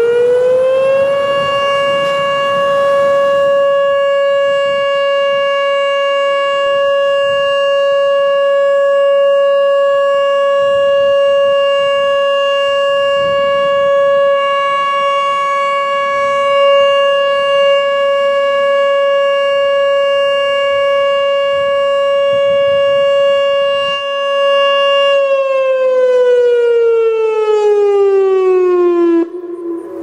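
Whelen electronic outdoor warning siren sounding a steady alert tone in a test of the system. The pitch rises for about the first second, holds steady and loud for over twenty seconds, then glides down over about four seconds, and the sound drops in level near the end.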